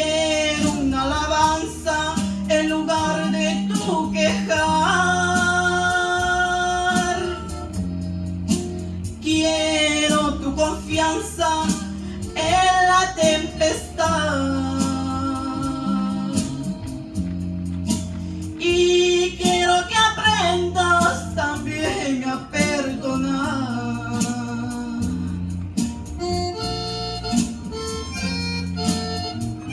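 Backing track of a Christian worship song playing through a church sound system: a held melody line over steady bass notes, with a woman singing into a microphone at times.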